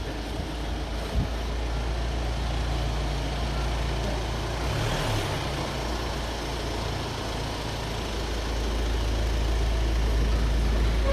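Vehicle engine running steadily at low revs, a low drone that grows a little louder toward the end as the trailer is moved into the shed.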